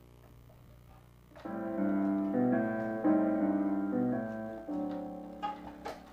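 Piano music from a taped show soundtrack, a run of chords starting about a second and a half in; a few sharp clicks near the end.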